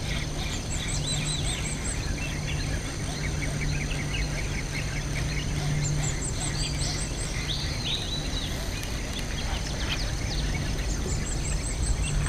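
Birds calling in three quick runs of high chirps over a steady background hiss, with other scattered chirps between.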